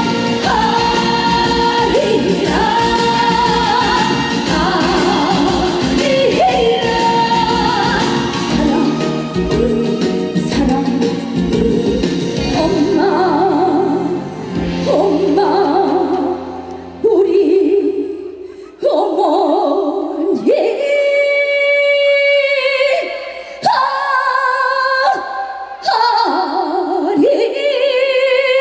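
A woman singing a Korean trot song live over backing accompaniment, her long notes with a wide vibrato. About seventeen seconds in, the drums and bass drop out and the voice carries on over lighter backing.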